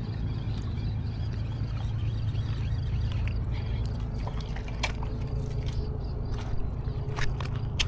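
Water splashing and trickling over a steady low rumble, with a few sharp clicks in the second half.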